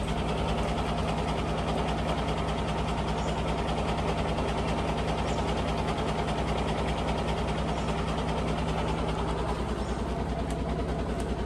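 Heavy lorry's diesel engine idling steadily with a fast, even low pulse.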